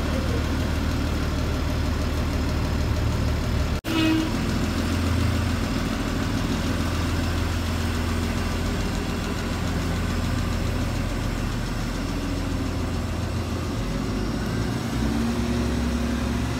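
City transit bus engine idling at a stop with a steady low hum. The sound cuts out for an instant about four seconds in.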